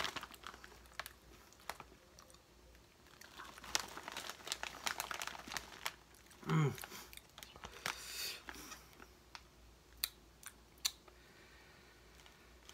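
Close-up chewing of Ruffles Double Crunch ridged potato chips, with irregular crisp crunches coming in clusters, mixed with the crinkle of the foil chip bag being handled. A brief low hum about six and a half seconds in.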